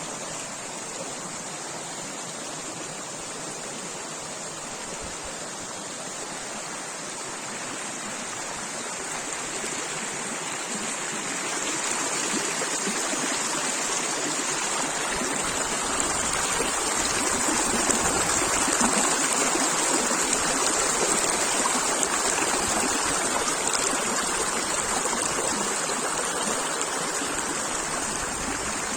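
Stream of running water, a steady rush that grows louder about halfway through.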